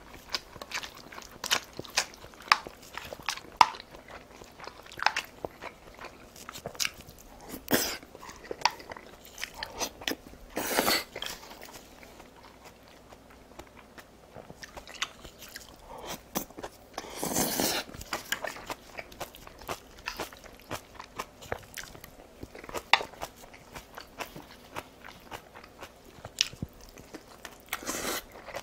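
Close-miked eating: a steady run of crunches and wet mouth clicks from chewing napa cabbage kimchi and a rolled fried egg, with a few louder, longer smacks.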